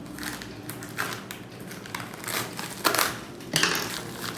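Product packaging being handled and opened: irregular crinkling and crushing rustles of box and wrapping, loudest in two bursts about three seconds in.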